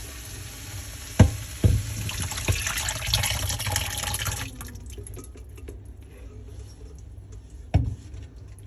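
Water running from a kitchen tap, shutting off about halfway through, with a few sharp knocks of a pot or utensil, one near the end.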